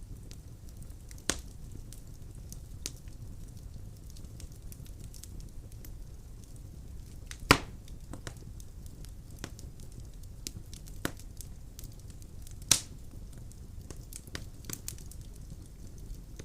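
Firewood burning in a fireplace: a steady low rumble of the flames with scattered small crackles and three sharp pops, the loudest about halfway through.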